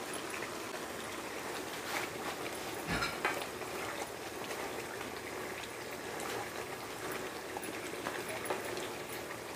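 Thick tomato-based beef stew simmering and bubbling in a pan while a spoon stirs it. A few light knocks of the spoon against the pan come about two and three seconds in.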